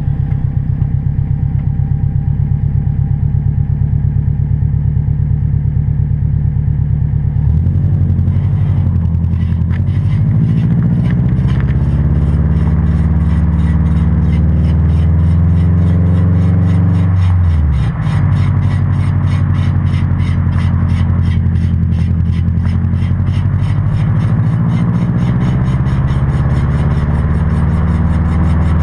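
2006 Subaru WRX driving: its flat-four engine runs steadily, then pulls away with rising pitch for about ten seconds, drops briefly at a gear change and settles to a steady cruise. Throughout the driving a fast, regular scraping grind comes from the front passenger wheel, the sign of a failing wheel bearing.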